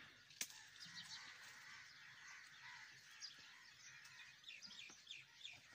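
Faint chirping of small birds: many short, high calls scattered throughout. A single sharp click about half a second in.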